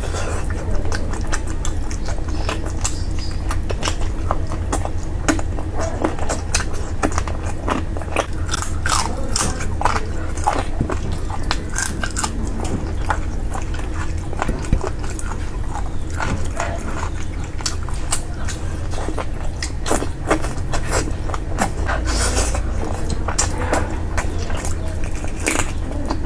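A person chewing and eating curry close to the microphone, with many small wet mouth clicks, over a steady low hum.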